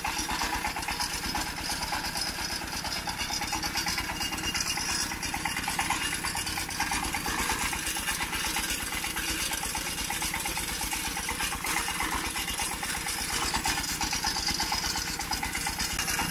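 A small engine idling steadily, with a rapid, even beat.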